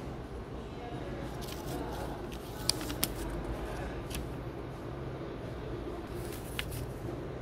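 Steady low indoor room hum, with a few sharp clicks and taps: two close together near the middle and a fainter one later.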